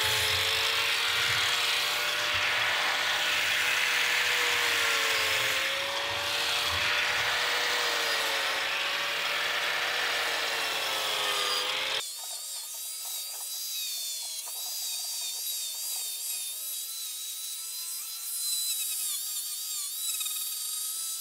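Angle grinder with a carving disc grinding into a birch log, its motor whine wavering as the disc loads and frees up in the wood. About twelve seconds in the sound changes abruptly to a quieter grinder with a higher whine, cutting narrow grooves into the bark.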